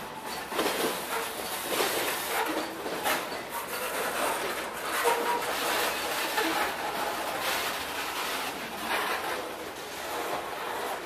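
Freight train of covered hopper cars rolling past close by: a steady rumble of steel wheels on rail, with irregular clacks as the cars' wheels cross the rail joints.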